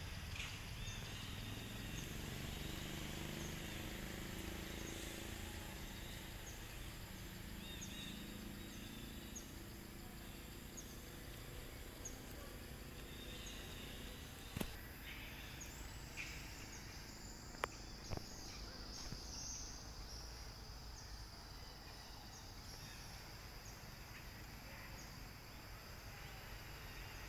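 Outdoor forest ambience: a steady high insect drone, with short high chirps repeating about once a second for a while, and a few sharp clicks near the middle.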